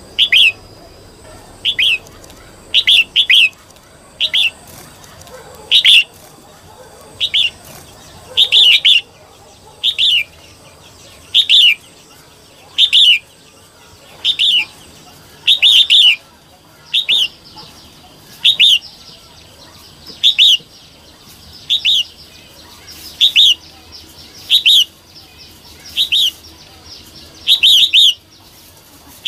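Female red-whiskered bulbul calling: short, sharp, high notes repeated about once every second and a half, now and then doubled. This is the female call used by bird keepers to stir up male bulbuls.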